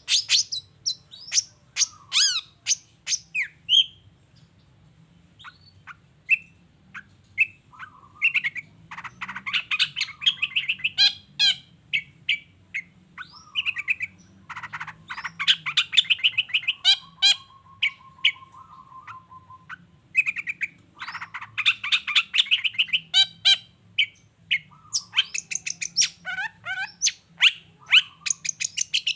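Long-tailed shrike (cendet) singing a varied song. Sharp whistled notes alternate with bursts of harsh chattering and a short, even trill about two-thirds of the way through.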